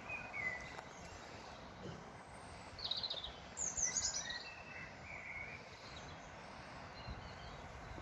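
Wild birds chirping in short, scattered calls over a steady outdoor background hiss, the loudest calls coming about three and a half to four seconds in.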